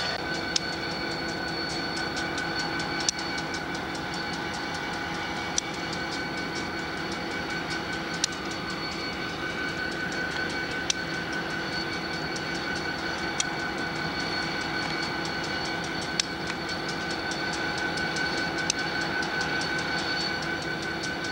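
CSX diesel locomotives running slowly past with a steady engine hum. A sharp click comes about every two and a half seconds as the wheels cross rail joints.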